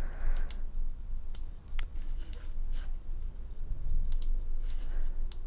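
Several scattered single clicks of a computer mouse, over a faint steady low hum.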